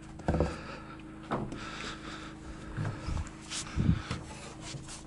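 A wooden ledger board being handled on the timber frame, making four dull knocks about a second apart with some rubbing, over a steady low hum.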